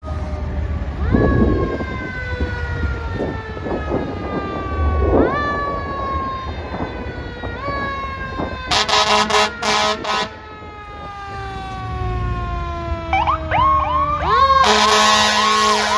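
Fire truck's electric siren repeatedly wound up and left to coast, its pitch jumping up and then sliding slowly down about every two and a half seconds. About nine seconds in, a series of short heavy air-horn blasts cuts in, then the siren winds down. Near the end a fast-cycling electronic siren tone comes on, loud.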